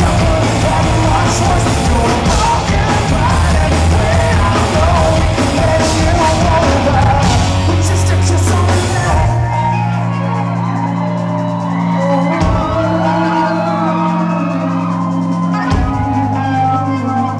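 Live rock band playing loud, with drums, cymbals, electric guitar and a male voice singing. About nine seconds in, the drums and cymbals stop, leaving held bass and guitar notes with cheers and whoops from the crowd.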